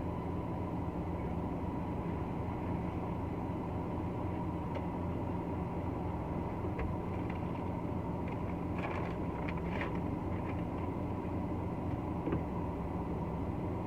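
Steady low hum of a car's idling engine heard from inside the cabin, with a few faint rustles about nine seconds in.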